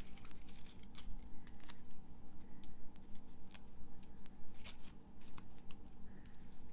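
Hands handling stiff die-cut paper and foil pieces, a run of small irregular crackles and ticks, as foam adhesive dimensionals are stuck onto the back of a layered paper flower cluster.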